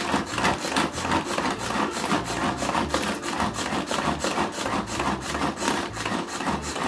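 Pull-cord manual food chopper worked with quick repeated pulls: a steady rhythmic rasping whirr as the cord spins the blades through cooked chicken breast, grinding the meat.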